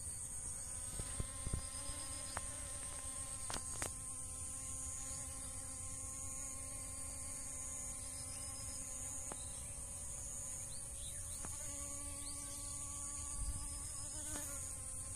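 Honeybees buzzing in flight close by: a low, steady wingbeat hum that comes and goes, over a constant high-pitched insect shrill with a few soft clicks.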